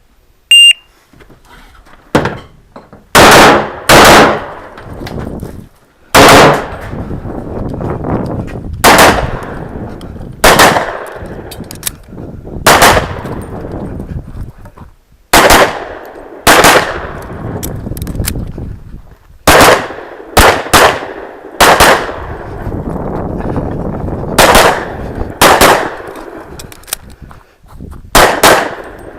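Shot-timer start beep about half a second in, then a string of about eighteen pistol shots during an IPSC stage, fired in ones and quick pairs with gaps of a second or more between as the shooter moves through the stage.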